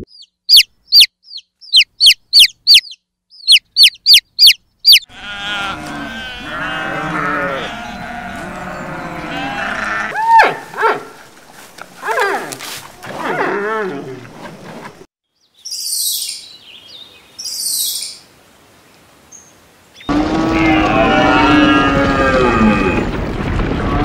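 Baby chicks peeping, about a dozen sharp high peeps in the first five seconds, followed by a run of assorted animal calls. About two-thirds of the way in come two short hissy bursts, and near the end another stretch of animal calls.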